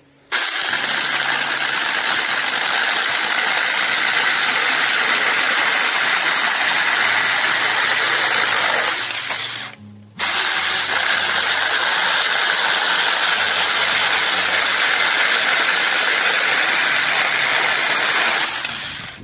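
A Saker 4-inch cordless 20-volt mini electric chainsaw running at full speed and cutting through a dead branch. The motor winds down about nine seconds in, starts again abruptly about a second later and cuts on until just before the end.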